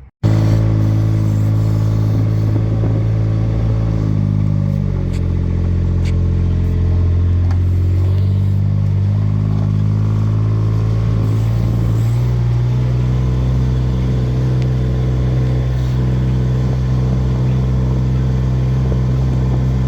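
Engine running steadily close by. It slows about four seconds in and speeds up again around twelve seconds in.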